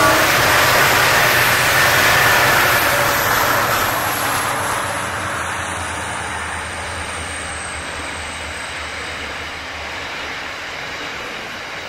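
ALF and CLP class bullnose diesel locomotives heading a grain train pass close by, their engines loud for the first few seconds and then fading. The steady rolling noise of the grain hopper wagons going past follows, with a faint high whine slowly falling in pitch.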